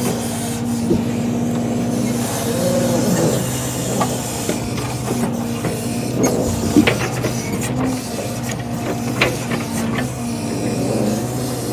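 Peterbilt log truck's diesel engine running at a steady, raised speed to drive the knuckleboom loader's hydraulics, with a hydraulic whine that bends in pitch as the boom moves. A few sharp knocks come as the grapple and logs bump in the rail car.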